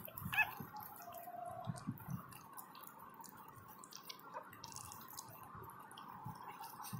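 A newborn puppy gives one short squeaky whimper right at the start, then soft, wet clicking and smacking sounds of dogs' mouths working against fur, close to the microphone.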